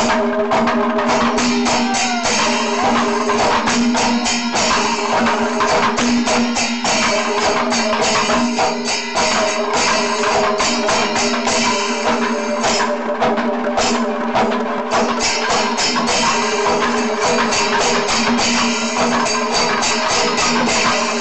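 Kerala panchavadyam temple ensemble playing: timila and maddalam drums struck in fast, dense rhythm with small ilathalam cymbals clashing, over a steady held tone.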